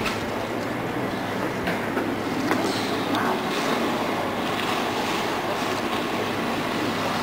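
Outboard engines of an RNLI inshore lifeboat, a rigid inflatable, running steadily with a low hum as it manoeuvres at slow speed, with water churning in its wake.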